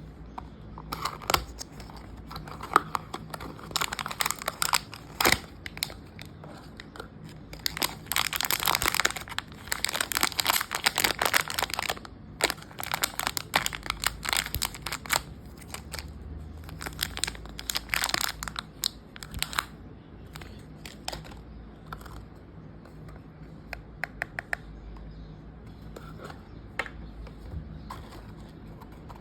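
Packaging of a blind box being opened by hand: wrapping crinkling and tearing in bursts of crackly rustling, busiest in the first two-thirds and sparser near the end.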